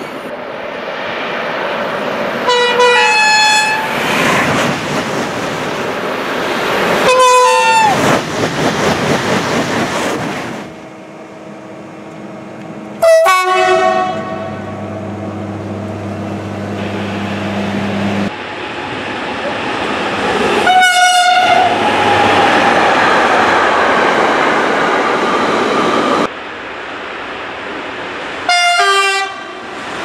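A series of short horn blasts from SNCF trains, five in all, with the loud rush and rumble of trains passing at speed between them. The sound changes abruptly several times as one train passage cuts to the next.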